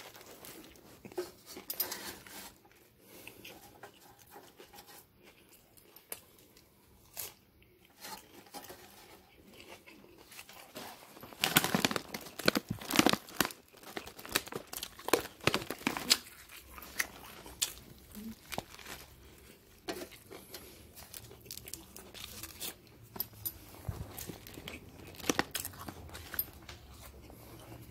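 Crinkling and rustling handling noises with scattered small clicks as a sandwich is handled over a plate. A louder stretch of crunchy rustling comes about halfway through.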